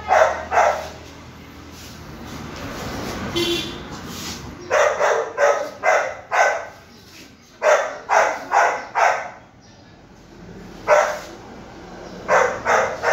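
Golden retriever puppy barking in quick runs of short barks, several runs with pauses between them.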